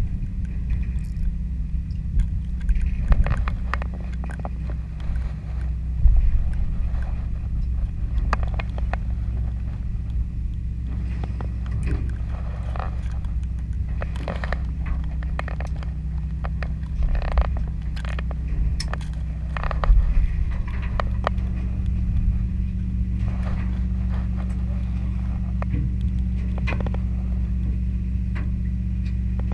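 Party fishing boat's engine running steadily with a low drone, under scattered clicks and knocks.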